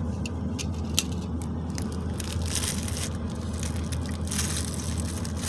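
Crinkling and crackling of thin plastic wrapping as a baby squeezes and pulls at a plastic-wrapped packet in her hands, in quick irregular bursts. A steady low hum from the car runs underneath.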